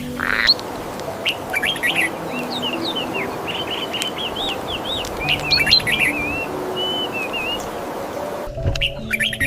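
Many small birds chirping in quick, gliding calls, one after another, over soft background music with held low notes and a steady hiss. The background changes abruptly near the end.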